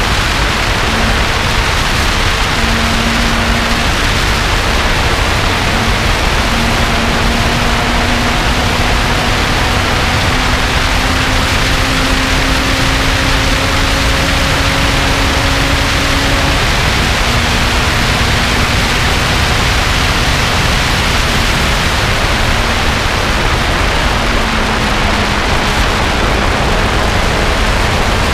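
Lotus sports car driving at speed on a race track: a loud, steady rush of wind and road noise over a faint engine note that rises slowly for about ten seconds, then drops back.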